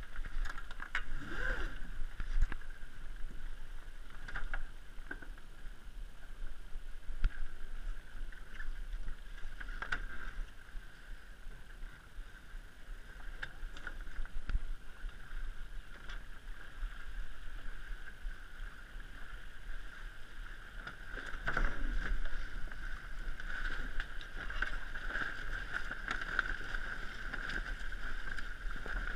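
Water rushing and splashing along the hull of an RS100 sailing dinghy under way, with a few louder wave slaps near the start and again about two-thirds of the way through.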